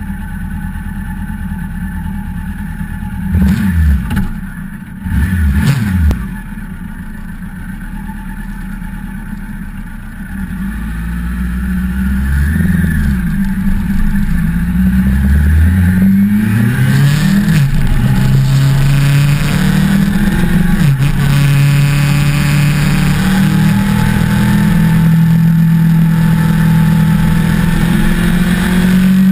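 1988 Suzuki GSX-R750J's oil-cooled inline-four engine, heard from on board the bike. It is revved twice in quick blips near the start and settles back to idle. It then accelerates, its pitch climbing in several rising sweeps as it works up through the gears, and settles into a steady run.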